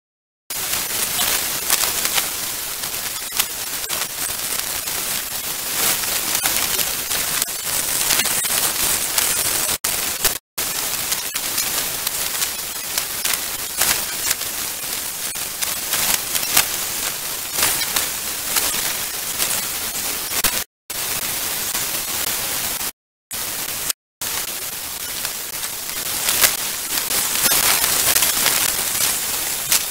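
Hurricane wind and rain hitting a security camera's microphone: a loud, even hiss with a patter of drops, cutting out briefly four times where the timelapse audio jumps.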